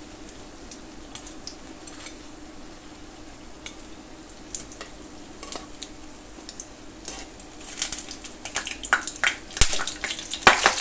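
Potato cutlets shallow-frying in oil with a steady light sizzle, while a wire spider skimmer clicks and scrapes against the frying pan as the finished golden cutlets are lifted out. The metal clinks come thicker and louder in the last three seconds.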